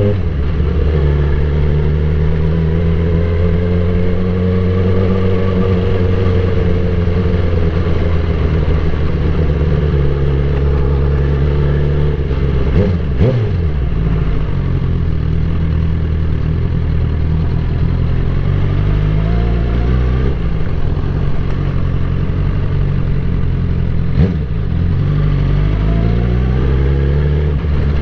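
Suzuki GSX-R1000 K8 sport bike's inline-four engine running under way, its note slowly rising and falling with the throttle. The note breaks sharply and picks up again twice, about halfway through and near the end.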